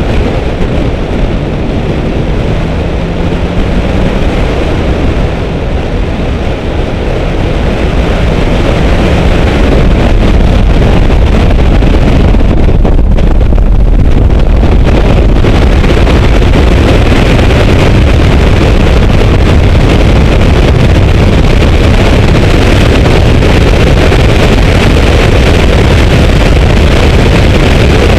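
Car being driven at speed on a racetrack: engine running under load, mixed with heavy wind buffeting on the microphone. The noise grows louder about ten seconds in and then holds steady.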